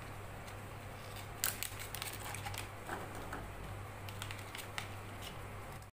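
Coffee sachet crinkling and crackling as it is handled, with scattered sharp clicks, the loudest about a second and a half in, over a steady low hum.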